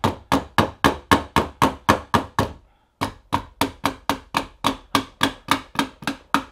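Non-marring two-faced soft mallet tapping rapidly on the tight-fitting plastic forearm of a Henry X Model rifle, driving it off along the barrel. Steady taps about four a second, with a short pause a little under halfway through before they resume.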